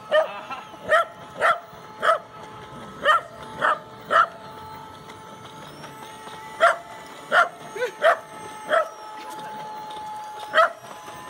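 A small dog barking repeatedly, about a dozen short sharp barks in bunches, with a pause of about two seconds near the middle. A faint steady whine runs underneath.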